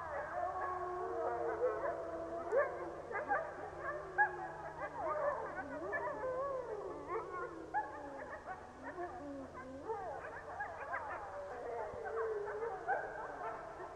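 A family group of wild grey wolves howling in chorus: many voices at once, overlapping howls gliding up and down, mixed with quick wavering yips and barks.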